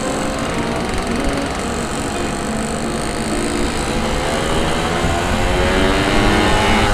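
Yamaha RX-King's 135 cc two-stroke single-cylinder engine running on the move, its pitch climbing over the last few seconds as it speeds up.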